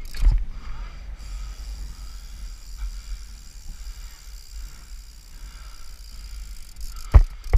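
Street trials bike riding over granite steps and paving: a steady low rumble of rolling and wind on the rider-mounted microphone, a knock just after the start and two sharp knocks near the end as the bike's tyres strike stone.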